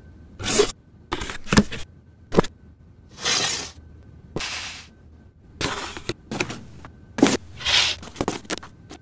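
Sharp clicks and knocks mixed with short bursts of rustling, as the small plastic parts of a motorcycle dash camera kit and its packaging are handled.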